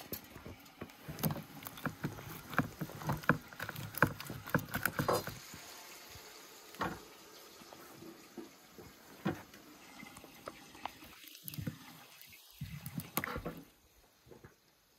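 Roasted guinea fowl being handled and torn apart by hand on a wooden cutting board: a quick run of clicks and knocks for about five seconds, then only scattered clicks.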